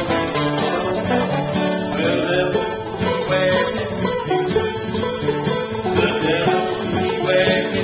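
Resonator banjo picking a fast run of notes over acoustic guitars strumming: a bluegrass band playing live.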